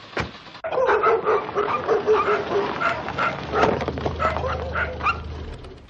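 Several dogs barking over and over, about three or four barks a second, starting just under a second in.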